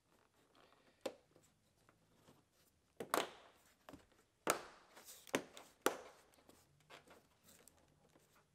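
Door sill plate trim being pressed and snapped into place on a pickup's door sill: a scattering of quiet clicks and knocks, the strongest a few seconds in.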